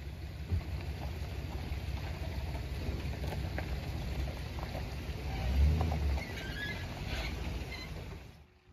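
Pickup truck running as it pulls away towing a loaded car trailer: a steady low rumble that swells louder about five and a half seconds in, with scattered light rattles, then drops away sharply near the end.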